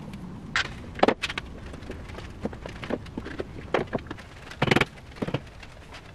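Steel pipe clamps being handled and set on a glued-up timber cabinet: irregular knocks, clicks and clanks of metal on metal and wood. The loudest knock comes about a second in, and a longer clatter comes about three-quarters of the way through.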